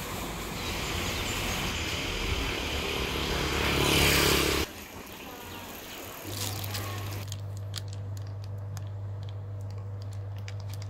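Busy street-market background noise with faint voices and traffic, which builds and then cuts off abruptly about halfway. After that comes a steady low hum with scattered light clicks and rustles.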